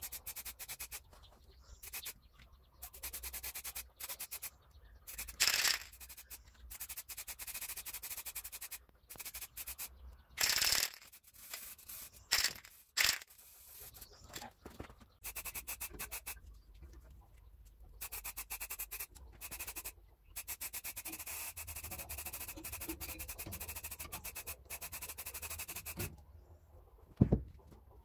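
Aerosol can of spray primer hissing in repeated bursts of one to two seconds with short pauses, several of them louder about halfway through. A single sharp knock near the end, as the can is set down on the wooden rail.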